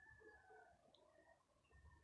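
Near silence, with faint short chirping bird calls in the background.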